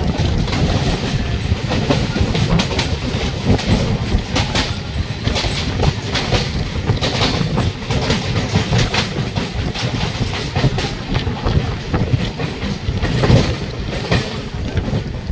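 Electric local train running at speed, its wheels clattering and clacking over rail joints and points, with another train passing close alongside on the next track.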